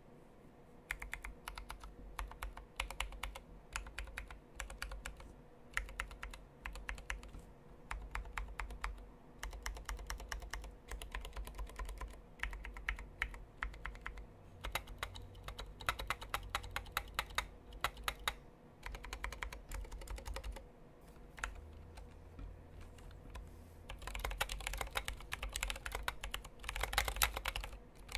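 Typing on a Tokyo60 60% mechanical keyboard with Zealios 67g tactile switches lubed with Krytox 205g0 and dye-sub keycaps: a steady run of keystroke clacks starting about a second in. It eases off briefly past the middle, then comes faster and denser near the end.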